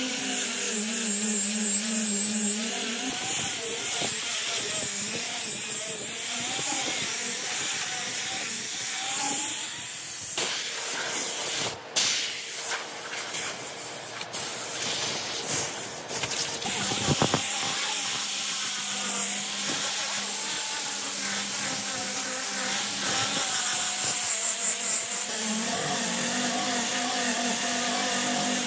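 Angle grinder fitted with a sanding disc on a rubber backing pad, running at speed while it is worked across a rough wood slab, with a steady high motor whine over the scrubbing of the disc on the wood. In the middle the whine drops out and a different power tool is heard for a few seconds, with a few sharp clicks, before the disc sanding resumes.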